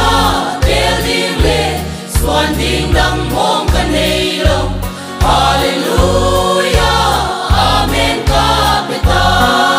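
Mixed choir of men's and women's voices singing a Christian hymn, with the words "Haleluiah Amen", over instrumental backing with a pulsing bass line.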